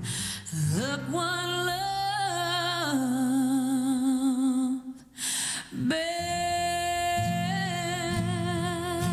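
A woman sings a country song with a band, holding long notes with vibrato over steady low accompaniment. There is a brief break about five seconds in before the next sung line.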